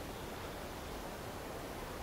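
Steady outdoor ambience: an even rustling hiss with no distinct sounds standing out.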